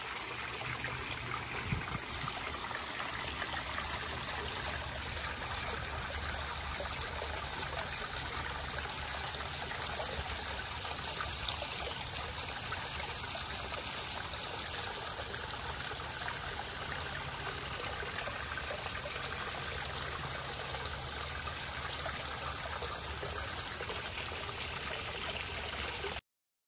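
Steady trickling and splashing of water from a small garden-pond fountain spray and a stepped stone waterfall falling into the pond. It cuts off abruptly near the end.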